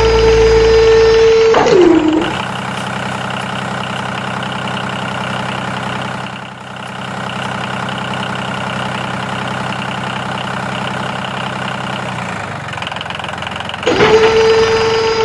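Loud, steady high-pitched electric motor whine of a toy RC excavator, dropping in pitch as it stops about two seconds in. This is followed by a quieter, steady engine idling sound for about ten seconds, and the excavator whine starts again near the end.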